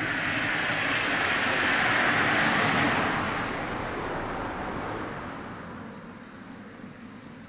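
A passing vehicle: its engine and road noise swell to a peak about two to three seconds in, then fade away.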